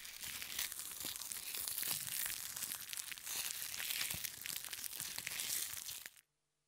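Crackling, fizzing sound effect of acid corroding through a hazard sign: a dense hiss full of fine crackles, mostly high-pitched, that cuts off suddenly about six seconds in.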